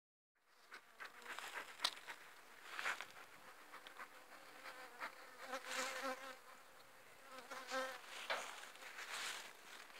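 Honeybees buzzing as they fly around the hives. The buzz swells as bees pass close, about halfway through and again near the end, with light rustling steps in the grass.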